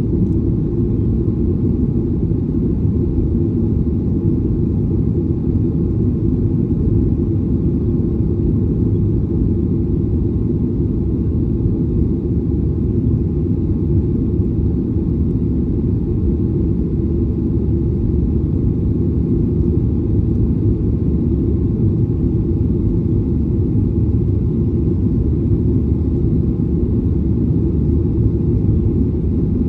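Airliner's engines and airflow heard as a steady low rumble from inside the cabin, with no change in pitch or level.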